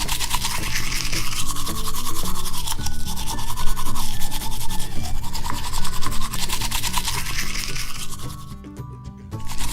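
Toy toothbrush scrubbing quickly back and forth over Play-Doh teeth, a fine rubbing scratch, over background music. Both drop away for a moment near the end.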